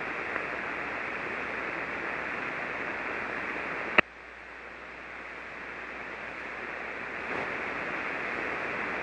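Hiss and static of an HF single-sideband receiver on the 40-metre band with no one transmitting. A sharp click about four seconds in, after which the hiss drops and slowly rises again.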